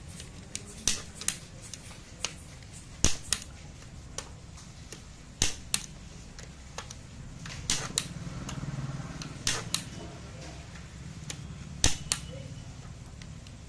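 Click-type torque wrench tightening cylinder head bolts to torque: sharp metallic clicks every second or two, many in quick pairs, as each bolt reaches its setting.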